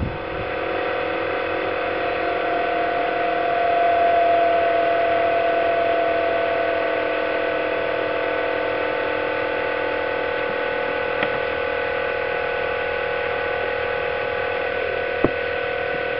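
Brushless electric motors of a balsa RC Junkers Ju 52 model running on the ground with their propellers turning: a steady whine of several held tones that swells slightly about four seconds in. A sharp tick sounds near the end.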